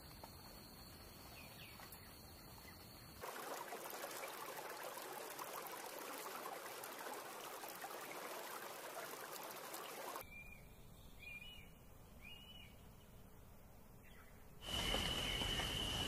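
Outdoor nature sounds in several takes. A faint background with a thin steady high tone gives way after about three seconds to several seconds of steady trickling, lapping water. Then come three short bird chirps about a second apart, and near the end a louder hiss with a steady high whistle.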